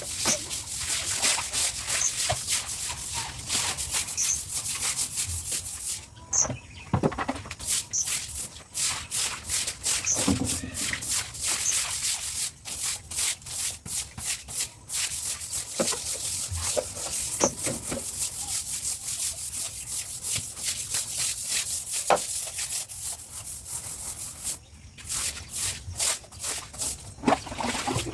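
A stiff broom scrubbing wet, soapy pavement in rapid, repeated strokes.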